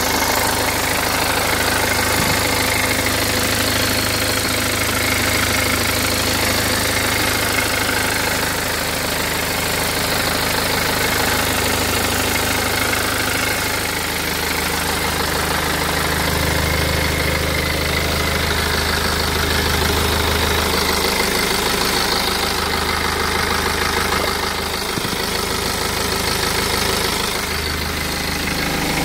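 BMW 320d's N47 four-cylinder diesel idling steadily, with a slight ticking in its running that the owner places at the lower right side of the engine and isn't sure is normal.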